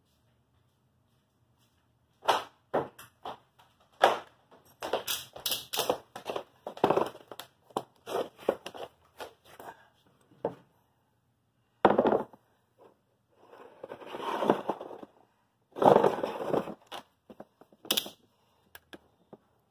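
Irregular knocks, thumps and short scraping noises in uneven bursts with pauses, starting about two seconds in.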